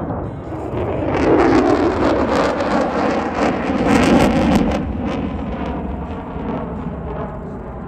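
F-35A Lightning II fighter jet flying past, the jet noise of its Pratt & Whitney F135 engine swelling to a crackling peak around four seconds in, then fading away.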